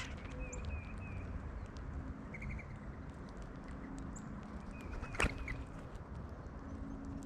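Birds chirping, short high notes in quick little runs, with a single sharp click about five seconds in.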